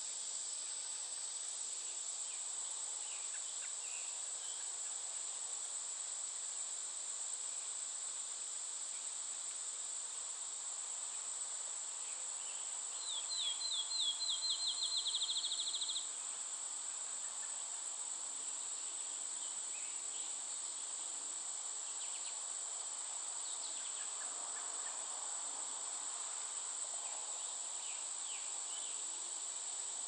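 Steady high-pitched drone of crickets and other insects. About thirteen seconds in, a songbird sings a quick series of down-slurred notes that speed up over about three seconds, the loudest sound here; a few faint short bird notes follow later.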